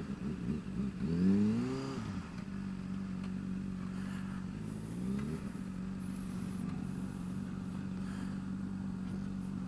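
Honda CBR600F4's inline-four engine running at low speed under the rider, its note rising twice with the throttle, about a second in (the loudest moment) and again around five seconds in.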